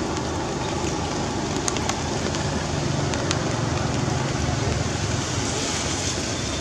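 Steady hiss of falling rain, with a few sharp ticks of drops and a low rumble that swells in the middle.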